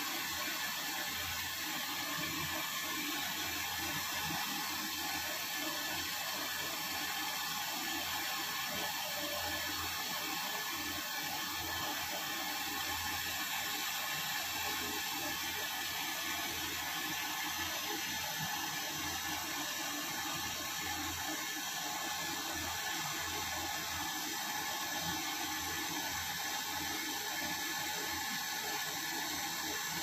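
Handheld canister gas torch burning with a steady hiss while brazing a copper refrigerant pipe joint.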